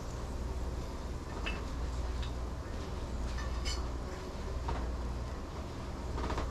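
A steady low hum with a few light metallic clinks and ticks, consistent with metal tongs touching a frying pan while bacon bites are turned and lifted out.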